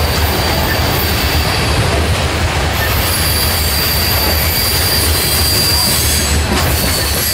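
Freight cars, covered hoppers and tank cars, rolling past: a steady rumble of steel wheels on rail with a thin, high wheel squeal that is loudest in the middle.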